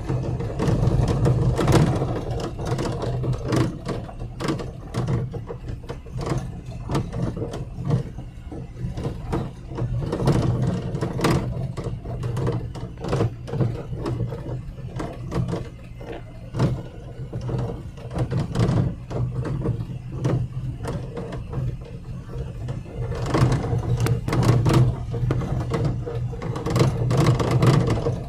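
Car steering rattling: irregular knocks and clicks over a steady engine hum, busiest about a second in and again near the end.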